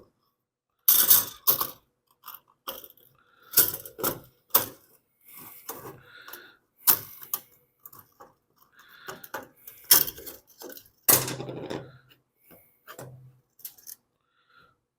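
Irregular clicks and clatter of plastic and metal parts as a small engine's recoil starter is taken apart by hand, with a short low hum twice near the end.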